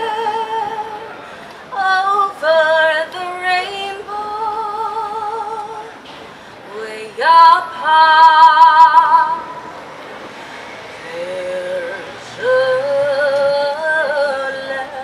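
Improvising choir voices singing held notes with wide vibrato. About seven seconds in, a woman's voice slides up to the loudest note and holds it for about two seconds, then quieter held notes follow.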